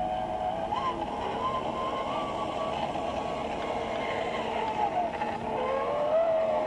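Electric motor whine of an Element RC Sendero HD rock crawler, its pitch wandering up and down with the throttle as it crawls, over a steady rushing noise.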